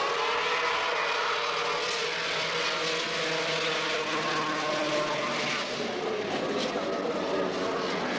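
Two-stroke snowmobile engines running steadily at high revs.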